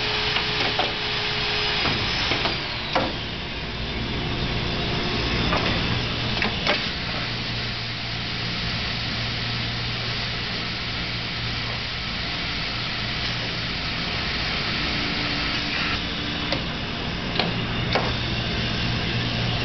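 Automated ultrasonic welding machine running through its cycle: a steady hum and hiss with sharp mechanical clunks from the moving fixtures and tooling, several in the first few seconds and a few more near the end.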